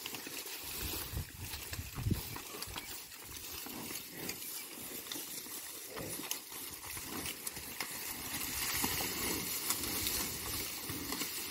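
Nelore cattle feeding on freshly cut capim-açu grass: rustling and crunching of the grass as it is handled and chewed, with a few soft knocks.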